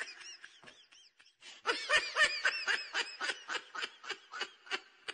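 Laughter in a rapid run of short 'ha' bursts, about four or five a second. One run trails off in the first second, and a louder run starts about one and a half seconds in and stops just before the end.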